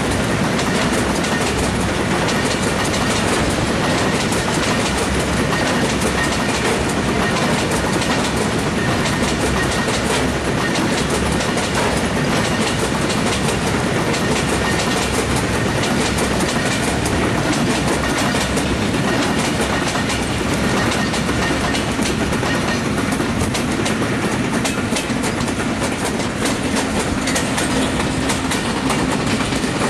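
Long freight train of oil tank wagons rolling past: a steady rumble with wheels clacking over rail joints. It continues unbroken as the passenger coaches and brake van at the tail go by.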